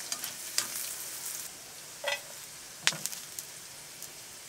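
Food sizzling in a pan on top of a wood stove as it is stirred with a metal spoon. The sizzling is loudest in the first second or so and then eases. Sharp metal clinks against the pan come about two and three seconds in.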